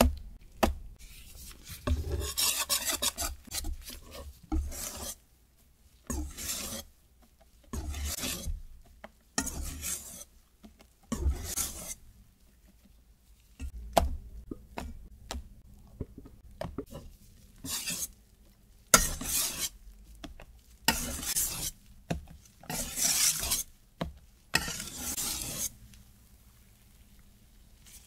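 Wire balloon whisk stirring meringue into wet chocolate cake batter in a stainless steel bowl, in a series of separate strokes with short pauses between them. A few sharp clicks of metal against the bowl come through, the sharpest about two thirds of the way in.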